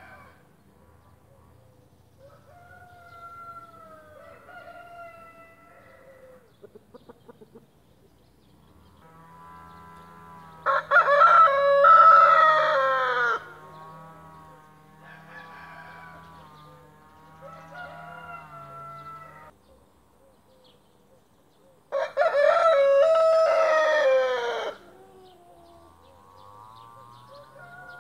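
A white splash Brahma rooster crowing: two loud crows about ten seconds apart, each lasting about three seconds and dropping in pitch at the end, with fainter drawn-out calls in between.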